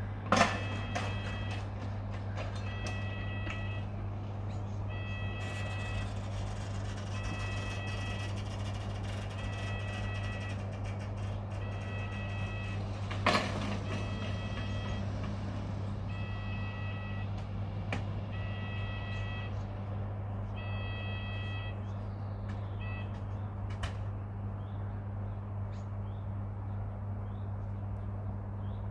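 Yodalarm-type electronic level-crossing alarm sounding a repeated beep, each about three-quarters of a second long with short gaps, warning that a train is due and the gates should be closed; it stops about 21 seconds in. Two loud bangs, one at the very start and one about 13 seconds in, come from the crossing gates being swung shut. A steady low hum runs underneath.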